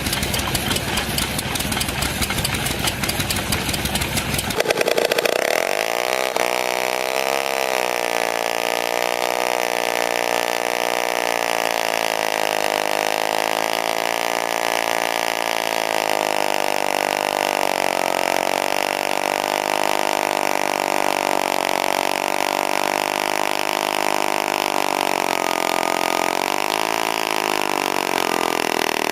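A machine engine running. For the first four and a half seconds there is a dense, rapid rattle. It then gives way to a steady engine hum whose pitch wavers slightly.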